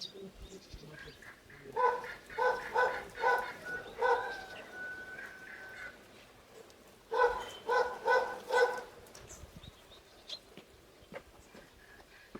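A dog barking in two short runs, about five barks and then about four a few seconds later.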